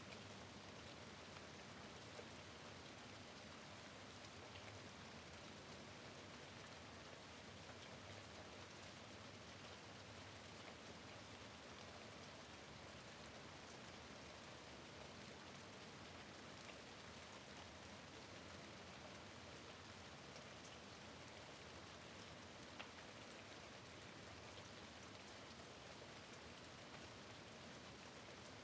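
Soft, steady rain falling at a window, with a few faint single drop ticks scattered through it.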